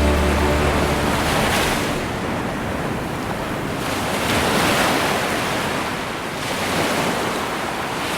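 Waves washing in slow swells, rising and falling every few seconds, as the tail of the outro music fades out in the first second.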